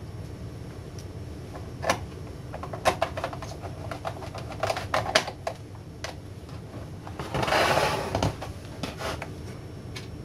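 Screwdriver and small screws clicking and tapping against the plastic back cover of an LCD monitor as it is screwed back together, in scattered clusters over a steady low hum. About three quarters of the way through comes a longer, louder scrape as the monitor is slid and turned on the desk.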